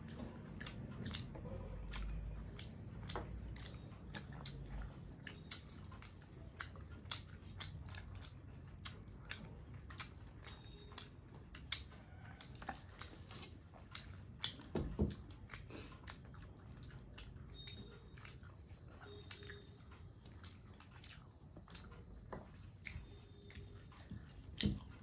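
Chewing and lip smacks of people eating rice with their hands, with many short, sharp clicks. There are also soft sounds of fingers working rice on steel plates.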